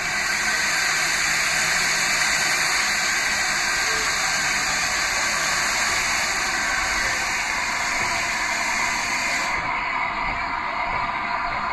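Small steam tank locomotive blowing off steam: a loud, steady hiss that cuts off sharply near the end, leaving a quieter hiss.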